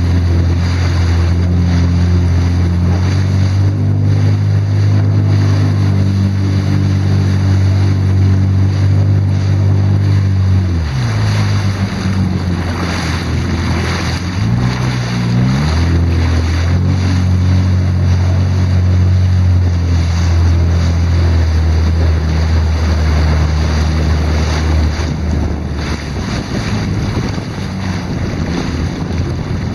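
Jet ski engine running at low speed, with wind on the microphone and water noise. About ten seconds in the engine note falls, then climbs back a few seconds later as the throttle is eased off and opened again.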